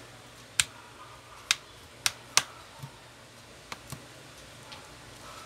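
Sharp plastic clicks from a plastic pry tool working along the edge of a Realme C11 phone's back cover, the cover's clips snapping loose: about five loud clicks in the first two and a half seconds, then a few fainter ones.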